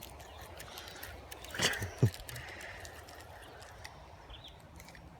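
Creek water running steadily, with two brief, sharp sounds about a second and a half and two seconds in.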